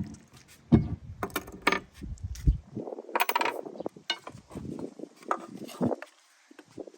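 Irregular clinking, clicking and clattering of small hard objects, with some low rumbling between the clicks.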